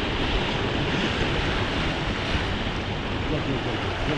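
Sea waves washing steadily over shoreline rocks, with wind rumbling on the microphone.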